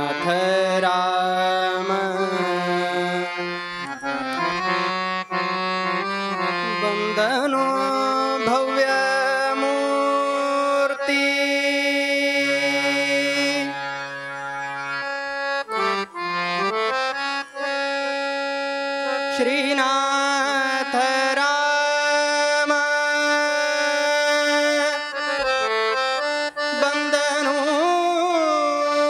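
Harmonium playing a devotional melody in long held reed notes, with a man's voice sliding between notes along with it at times.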